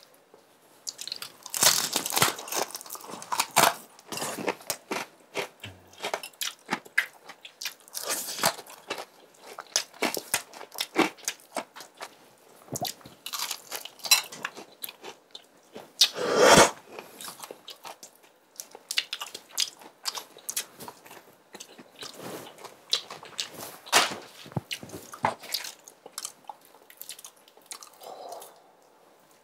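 Crispy Kyochon Real Fried chicken crust crunching as it is bitten and chewed, close to the microphone: a long run of sharp crunches with short pauses, the loudest crunch about halfway through.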